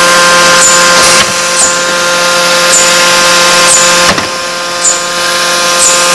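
Forging machine running with a steady loud mechanical hum made of several held tones. A short high chirp repeats about once a second, and the level dips briefly about four seconds in.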